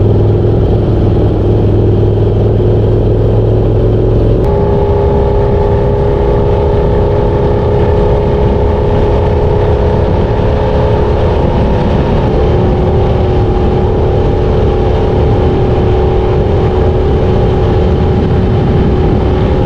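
Harley-Davidson V-Rod Muscle's liquid-cooled Revolution V-twin engine running loud and steady. About four and a half seconds in, the engine note changes abruptly to a higher pitch and then holds steady.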